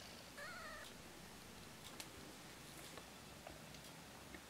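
Near silence with low room tone, broken about half a second in by one faint, short, high wavering mew from a two-week-old Persian kitten, and a few faint soft ticks afterwards.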